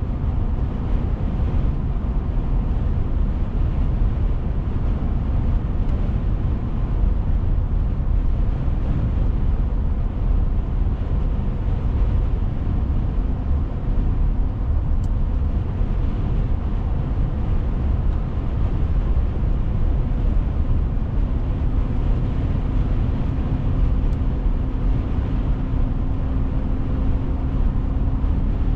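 Steady road, tyre and engine noise inside a moving car's cabin: a low rumble with a faint steady hum that grows a little stronger about two-thirds of the way through.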